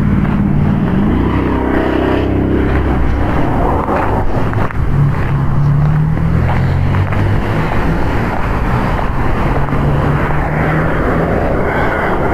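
A motor vehicle's engine running, its pitch climbing about a second in and shifting up and down over the rest.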